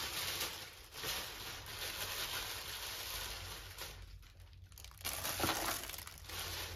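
Parcel packaging being opened and handled: rustling and crinkling for about four seconds, a short lull, then more rustling.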